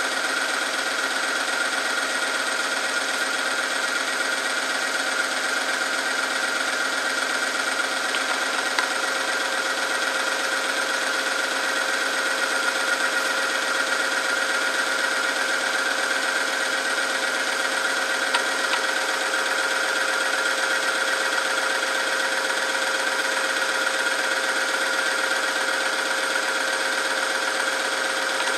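Oil film strength tester running under load: its electric motor turns a ring through the engine oil against a weighted test sample, giving a constant mechanical hum with a steady whine and no change in speed.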